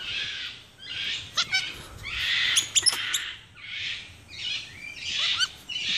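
Capuchin monkey screaming: hoarse, hissing calls about once a second, with short high squeaks mixed in.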